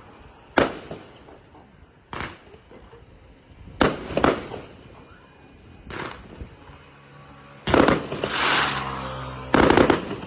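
Fireworks going off: a series of single sharp bangs a second or two apart, then two longer, louder bursts of crackling near the end.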